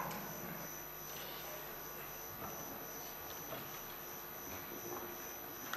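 Faint steady electrical hum and hiss from the hall's microphone feed, with a few soft small knocks.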